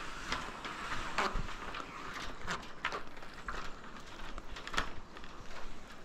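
Footsteps on the wooden plank walkway of a wire-mesh suspension bridge: irregular knocks about two a second, a couple of them louder.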